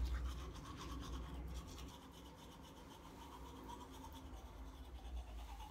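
Faint rustling and rubbing of a person moving about in a small room, over a steady low room rumble; the rustling is a little louder in the first two seconds.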